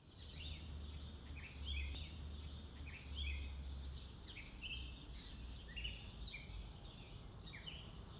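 Birds chirping: many short, quick, falling chirps overlapping one another, over a low steady rumble.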